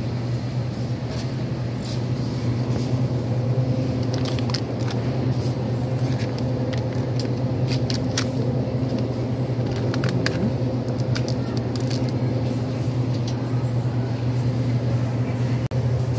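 Steady low hum of supermarket background noise, with scattered light clicks and rattles, most of them between about four and eleven seconds in.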